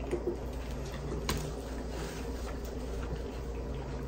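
Quiet eating sounds from pizza being chewed close to the microphone: soft mouth clicks, with one sharper click about a second in, over a steady low hum.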